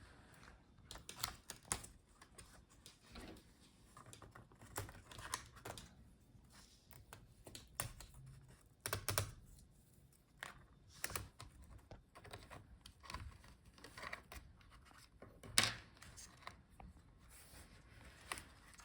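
Irregular small clicks, taps and scrapes of plastic laptop parts and cables being handled as the upper speakers are worked out of a Dell Latitude 7520's chassis, with a few sharper clicks along the way.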